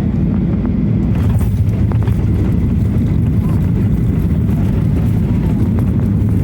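Airliner cabin noise on approach to land: a steady, loud low rumble of engines and airflow.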